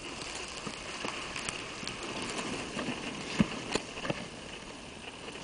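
Snowboard sliding over snow: a steady hiss with scattered small crackles, and two sharper knocks a little past the middle.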